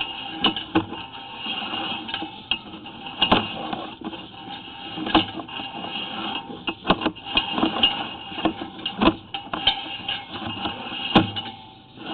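Sewer inspection camera's push cable being fed down the drain line: irregular clicks and knocks from the rod and camera head, over a faint steady whine.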